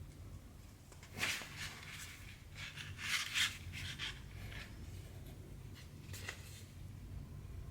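Hand cross-stitching: a needle and thread drawn through counted cross-stitch fabric, making several short rustling swishes, with a steady low hum underneath.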